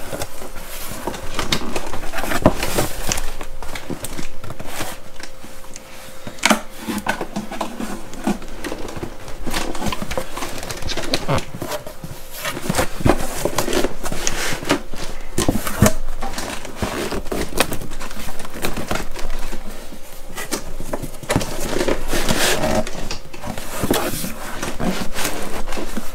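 Cardboard box and its packaging being handled as a boxed radio is eased out: scraping, rustling and crinkling with scattered sharp knocks and clicks.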